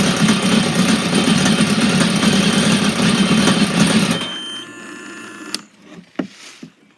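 Four-stroke jet ski engine idling steadily while antifreeze is run through it for winterizing. It cuts off abruptly about four seconds in, followed by a couple of sharp clicks.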